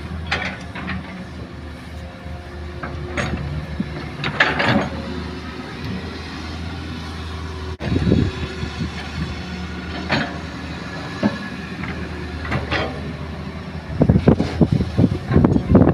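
Hitachi hydraulic excavator's diesel engine running steadily under work, with occasional metallic clanks and scrapes. A dense, rapid clattering starts about two seconds before the end.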